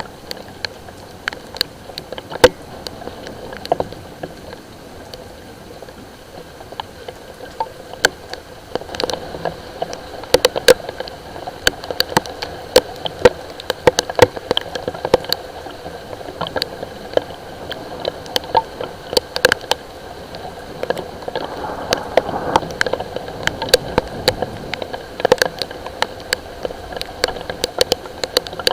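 Raindrops and drips tapping irregularly on a hard surface close by, a few to several sharp taps a second, getting busier about a third of the way in, over a faint steady hum.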